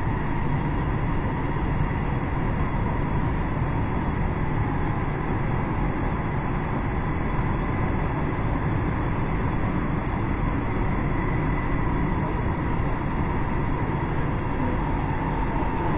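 Electric commuter train running, heard from inside the carriage: a steady low rumble with a faint steady whine over it.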